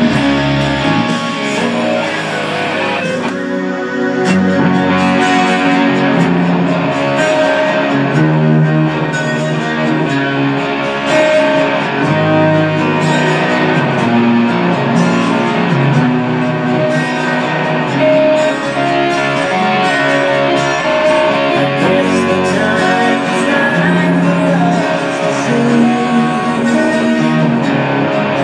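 Electric guitar playing a slow rock ballad, with a fuller band sound of bass notes underneath.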